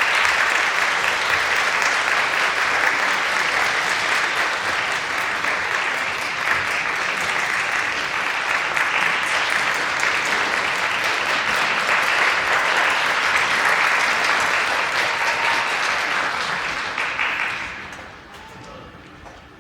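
Audience applauding steadily, then dying away quickly near the end.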